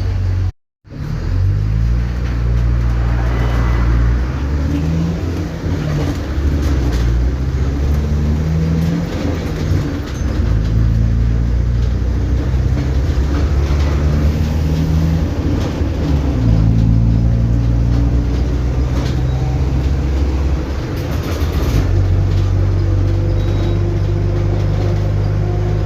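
Mercedes-Benz OF-1722M bus's 218 cv diesel engine pulling away and accelerating, its note climbing and then dropping back several times as it shifts up through the gears. The sound cuts out for a moment about half a second in.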